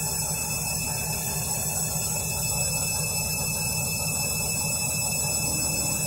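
Candy washing machine running steadily in its final spin at about 400 rpm, an even rumble of the drum turning.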